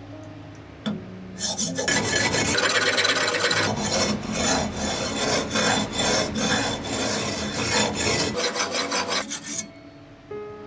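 Steel blade of a Damascus cleaver being ground on a diamond sharpening plate: repeated back-and-forth rasping strokes, about two a second. They start about a second and a half in and stop shortly before the end. This is grinding back the blade's damaged edge and corner during a repair.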